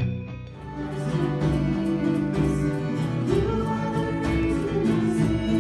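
Music: a song with singing, guitar and a steady beat, coming in about a second in after the previous music drops away.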